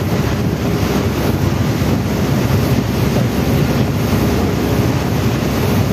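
Steady rush of a boat under way at sea: wind buffeting the microphone and water rushing past the hull, over a low drone.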